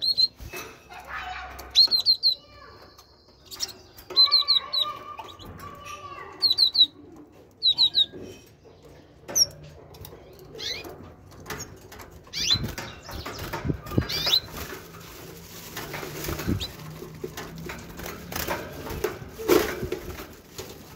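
Caged great tit giving short, high, paired notes about every two seconds for the first eight seconds, then fluttering about the cage: wing flaps with light clicks and knocks against the wire bars.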